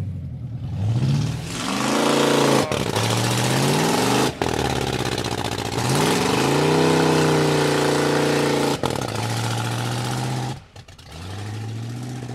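Pickup truck engine revved hard again and again, its pitch climbing and holding high, then falling back near the end. The truck barely creeps for all the revs: the transmission is slipping, which the owners take for a ruined transmission on its last leg.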